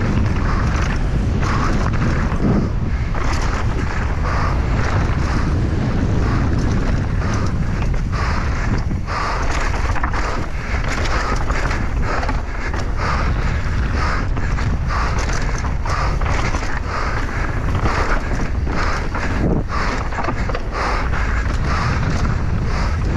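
Wind buffeting a helmet- or bike-mounted action camera's microphone during a fast downhill mountain-bike run, over a constant clatter of the bike and tyres on rough ground.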